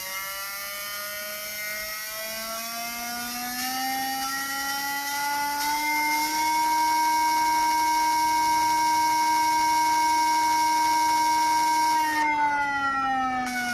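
Small speaker wired through a capacitor to an e-bike hub motor's phase wire, giving a motor-like electronic whine whose pitch follows the motor's speed. The pitch rises over the first several seconds, holds steady, then drops near the end.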